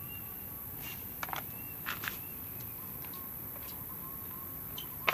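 Faint small clicks and taps of loose AA batteries being picked up off the track and dropped into a fabric bag, with a sharper click near the end, over a steady outdoor background hiss.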